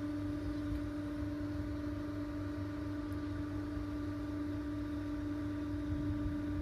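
A motor running steadily with a constant hum that holds one pitch, over a low rumble.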